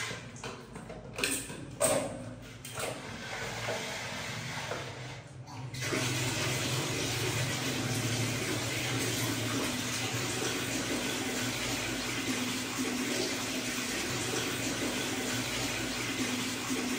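A couple of sharp knocks early, then from about six seconds in water running steadily from a tap into a basin, filling it for a bath.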